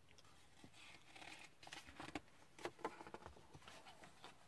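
Faint rustling and crinkling of paper, with a few small clicks, as a picture book's page is turned.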